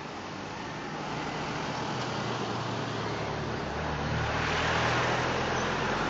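A motor vehicle going past, its engine and road noise building to a peak about five seconds in and then easing off.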